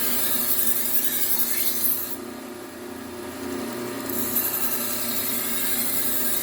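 Low-speed belt sander running with a knife blade held against the moving abrasive belt, a steady hiss of steel on the belt over the motor hum. The hiss stops about two seconds in while the blade is lifted, and comes back about four seconds in.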